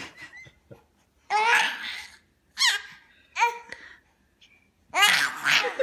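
A baby's high-pitched laughing squeals and babbling in four short bursts, the last one the longest.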